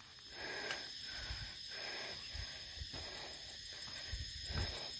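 Footsteps on soft, wet soil, a few irregular soft thuds, over a steady hiss.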